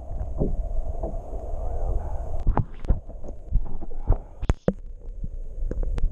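Muffled sound of water through a camera housing held underwater: a low rumble with irregular knocks and clicks as the housing moves and breaks the surface.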